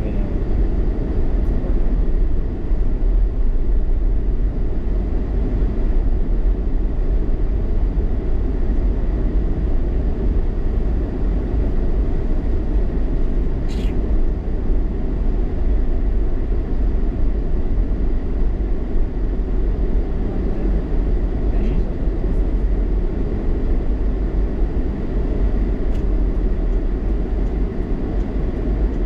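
Steady low rumble of a car's engine and tyres on the road, heard from inside the moving car, with a brief click about halfway through.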